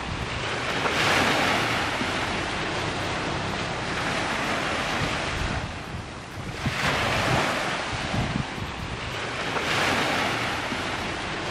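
Sea waves washing onto the shore, surging and falling back every few seconds, with wind rumbling on the microphone.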